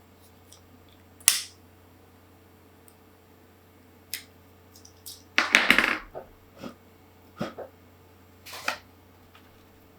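Handling noises from unboxing a smoke alarm: a sharp click about a second in, then scattered knocks and taps, with a short burst of rattling and rustling about halfway through. A faint steady hum sits underneath.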